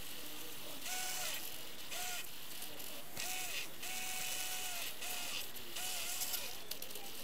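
Radio-controlled model truck's electric motor and gearbox whining in about eight short throttle bursts, each winding up, holding briefly and winding down, with a high gear rattle under each burst.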